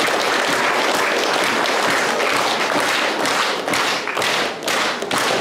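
Audience applauding, a steady wash of clapping that thins out near the end, where single claps stand out.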